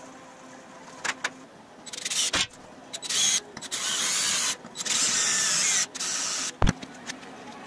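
Cordless drill boring into a square-tube frame rail, run in several bursts that start and stop as the trigger is squeezed and released. A couple of light clicks come about a second in, and a sharp knock near the end.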